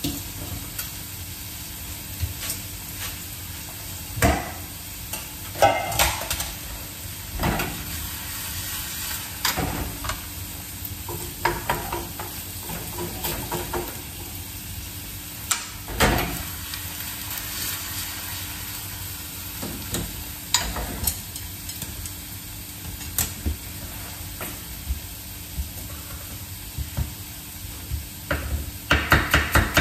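Grated potato galette sizzling steadily in olive oil in a frying pan, with scattered clinks and knocks of utensils against the pan and counter. Near the end a knife starts slicing red onion quickly on a cutting board, several even strokes a second.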